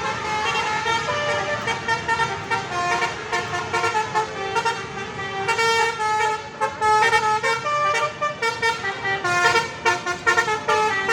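Indonesian "telolet" bus horn, a multi-tone horn playing a tune of stepped notes, with a rapid run of short toots near the end.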